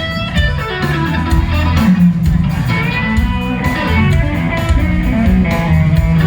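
A live blues band plays an electric guitar lead full of string bends, over a bass line and drums.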